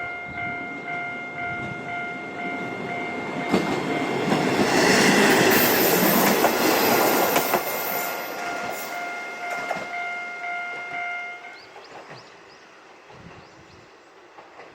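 Level-crossing warning bell ringing with a repeating electronic ding about twice a second, while a diesel train runs over the crossing, loudest from about four to eight seconds in. The train fades away and the bell stops about eleven and a half seconds in.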